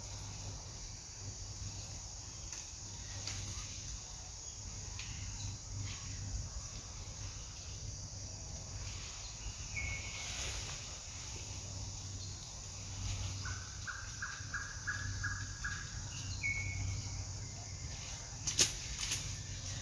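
Outdoor forest ambience with a steady high insect buzz and a short falling bird call repeated three times. Midway a quick run of about eight pulsed bird calls sounds, and near the end come two sharp clicks, the loudest sound.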